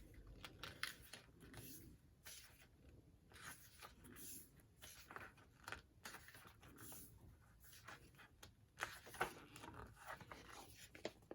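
Faint, scattered rustling and light clicks of paper and card being handled: an album digipack and its photo cards turned over and slid about.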